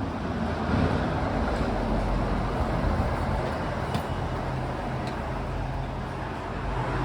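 Steady engine hum and road noise of a moving road vehicle, heard from inside.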